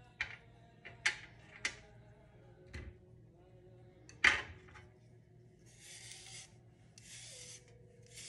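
Utensils clicking down on a tray a few times, the sharpest about four seconds in, then a vegetable peeler scraping along a white asparagus spear in three short strokes.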